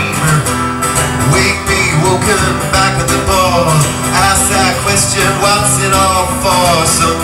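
A solo singer sings with an acoustic guitar accompaniment, both amplified through a PA for a live audience.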